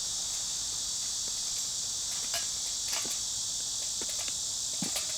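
Steady high-pitched insect chorus, with a scattering of small clicks and taps over it.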